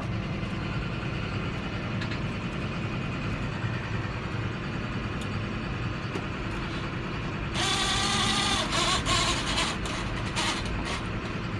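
John Deere 7530 tractor's six-cylinder diesel engine running steadily under way, heard inside the cab. About 7.5 seconds in, a louder hiss lasts about a second and a half, followed by a few clicks.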